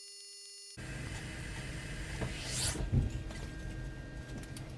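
A steady electronic hum that cuts off abruptly under a second in, giving way to the low rumble of cabin noise inside a KC-135 Stratotanker, with scattered clicks and knocks, a brief rising hiss and a heavier knock about three seconds in.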